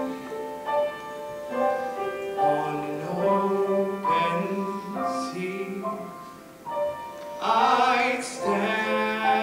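A male voice singing a slow musical-theatre song into a microphone, over an accompaniment of held chords.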